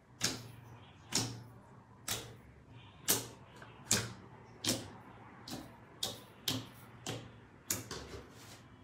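Thick glossy white slime popping and clicking as fingertips press into it and release, about a dozen sharp wet pops spaced roughly a second apart.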